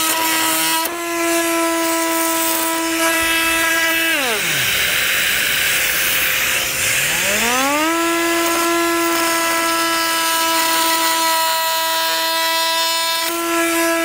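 Festool cordless oscillating multi-tool with a plunge base, plunge-cutting into solid oak: a steady high hum that winds down about four seconds in, starts up and rises back to speed about three seconds later, and winds down again near the end. A hiss from the attached dust extractor carries on through the pause between the two cuts.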